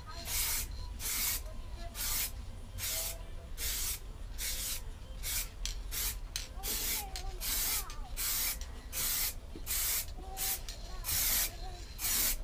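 Aerosol spray can of clear lacquer hissing in short, quick bursts, about two a second, as a coat is sprayed on in passes.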